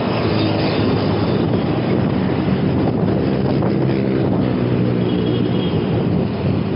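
Steady rush of road and wind noise from a fixed-gear bicycle ride, with the hum of motor traffic underneath.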